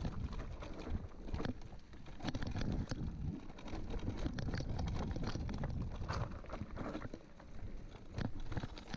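Mountain bike riding over rocky singletrack: irregular knocks, clicks and rattles as the tyres and frame jolt over stones, over a steady rush of wind on the microphone.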